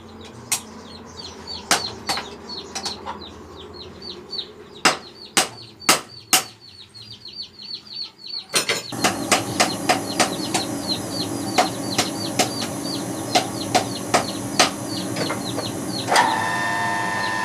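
Scattered sharp metal strikes over a fast, light ticking, then a machine starts about halfway in and runs with a steady stream of regular knocks; a whining tone joins near the end.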